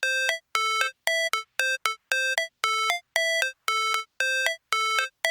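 Electronic music intro: a bright synthesizer playing short, clipped notes in a repeating figure, about two a second, with silence between them.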